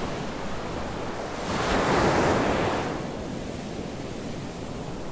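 Small ocean waves washing up on a sandy beach: a wave swells in a second and a half in, peaks, and draws back about a second later, leaving a softer steady wash of surf.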